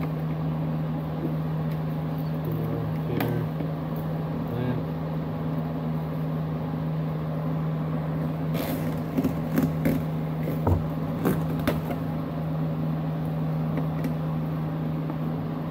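Screwdriver loosening the hose clamp on a car's plastic air intake duct, then a cluster of sharp clicks and knocks about halfway through as the plastic ducting is worked loose by hand. A steady low hum runs underneath throughout.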